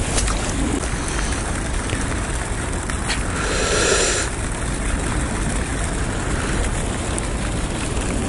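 Wind buffeting the microphone: a steady low rush of noise. About three seconds in, a brief higher hiss lasts about a second.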